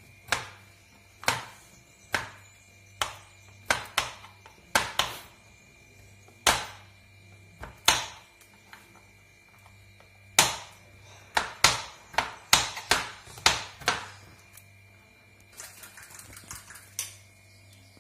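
Chef's knife chopping almonds on a plastic cutting board: sharp knocks of the blade against the board at uneven intervals, coming faster in a quick run about two-thirds of the way through.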